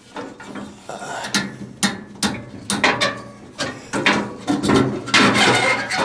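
Steel burner brackets and ribbon burners of a gas furnace being worked loose by hand: irregular metallic clicks and knocks, with a denser clatter about five seconds in.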